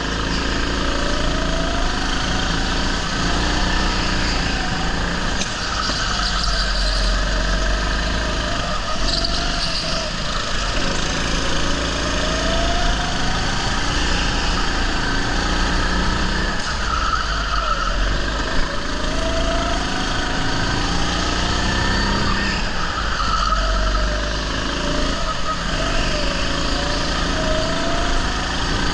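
Onboard sound of a rental go-kart driven at speed: its note climbs in repeated rising glides and drops away again, over a steady rush of wind and road noise.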